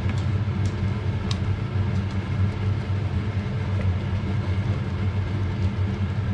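Steady low hum, with a few faint scrapes and taps of a wooden spoon stirring thick semolina halva in a stainless steel pot.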